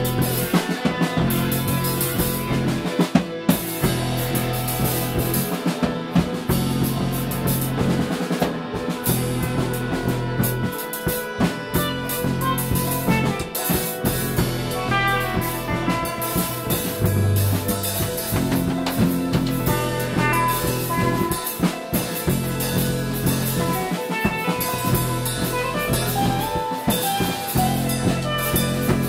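Live improvised instrumental jam: a drum kit played close up, with frequent snare, rim and cymbal hits, over held electric bass notes, with guitar and saxophone lines in the mix.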